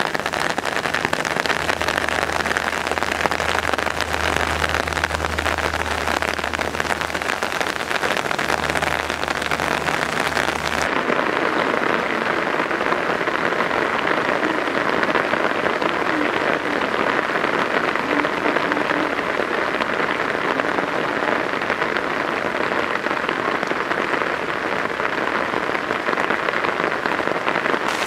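Heavy rain falling steadily on wet pavement and puddles, a constant hiss of drops. A low steady hum sits beneath the rain until about eleven seconds in, where the sound changes abruptly.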